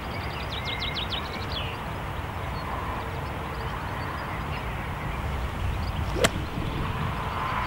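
A golf club striking sand and ball in a bunker shot: one sharp hit about six seconds in. Wind rumbles on the microphone throughout, and a bird gives a quick run of high chirps about a second in.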